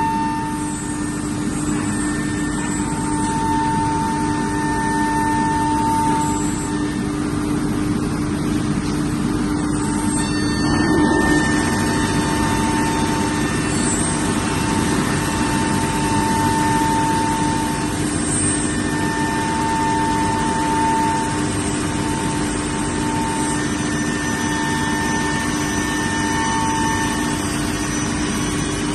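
CNC router running: a steady mechanical hum with a constant low tone, and a higher tone that cuts in and out every few seconds.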